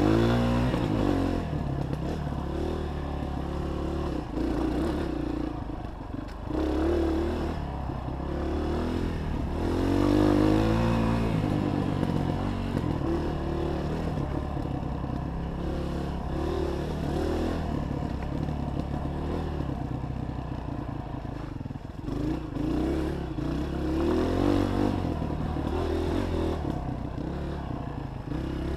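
Honda 230 dirt bike's single-cylinder four-stroke engine running under load on a trail ride. The revs rise and fall as the throttle is worked, with the biggest surge about ten seconds in and another near the end.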